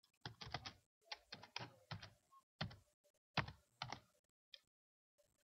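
Keystrokes on a computer keyboard, typed in short irregular bursts as an equation is entered.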